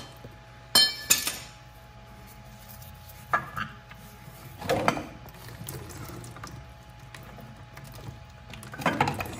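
A few sharp metallic clinks and knocks as the hydraulic oil filter canister of a 1971 Bobcat M600 is twisted loose by a gloved hand, two close together about a second in and more around three and five seconds. A low steady hum runs underneath.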